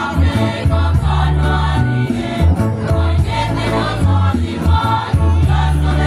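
Mixed youth choir singing in parts, with strong low bass notes under the voices.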